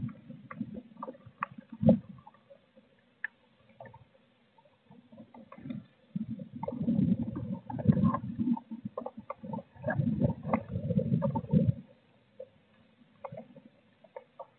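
Blue tit shifting about inside a wooden nest box, close to the microphone: scratching and rustling of claws, feathers and nest material, with scattered sharp clicks and two longer spells of rustling in the middle.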